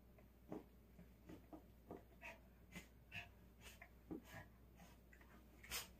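Faint, irregular short snuffles and soft rustles of a small dog nosing and tugging at a plush toy on its fabric bedding.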